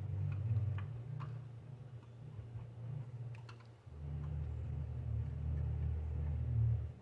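A few faint clicks and taps of plastic and metal as the distributor cap and sensor plate are worked loose by hand, over a low steady hum that cuts off near the end.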